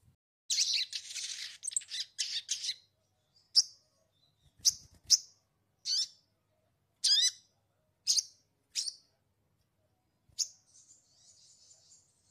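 A sogon, a long-billed songbird, calling in its cage: a dense burst of rapid high chirps, then a string of single sharp notes about a second apart, some sliding steeply down in pitch, and a faint buzzy chatter near the end.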